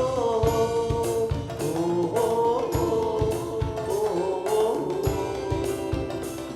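A song with a singing voice holding and bending long notes without clear words, over a steady drum beat with cymbal hits.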